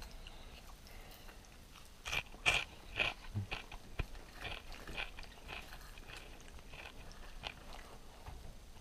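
Crunching of crispy fried, breaded brook trout as it is pulled apart and eaten: a run of irregular crisp crunches and crackles, loudest about two to three seconds in, then lighter and sparser.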